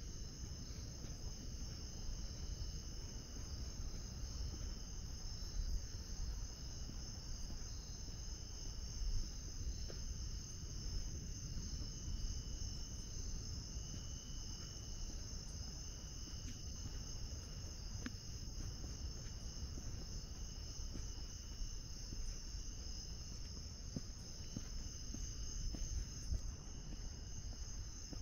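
Chorus of crickets and other night insects trilling steadily in several overlapping high pitches, with a low rumble underneath.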